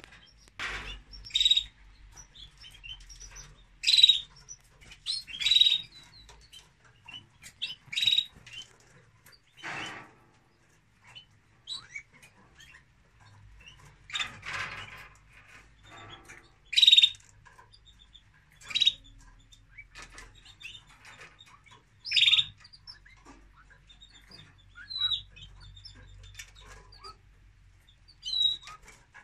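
Canaries chirping: about a dozen short, high chirps at irregular intervals, with a couple of brief rustling noises from the nest in between.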